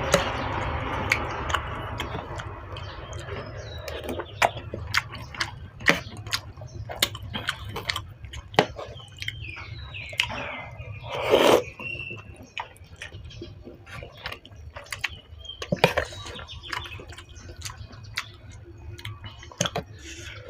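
Close-up eating sounds of a bowl of noodle soup: utensils clicking against the bowl, chewing and slurping, with one louder burst about halfway through. Passing traffic noise fades away over the first few seconds.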